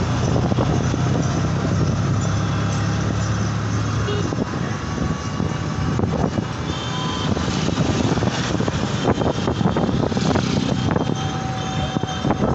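Busy roadside noise: a motor vehicle's engine hums steadily for the first four seconds or so. After that it gives way to mixed street noise with scattered knocks.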